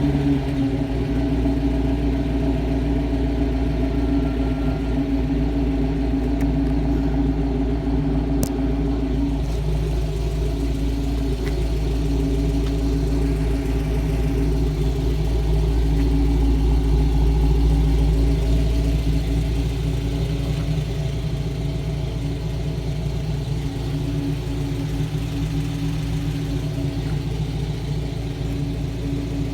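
Car engine fitted with a stage 2 camshaft, running steadily at idle with a deep exhaust note.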